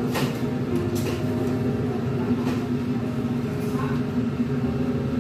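Background music with held notes over a steady low rumble, with a few light clicks as chopsticks work in a wok.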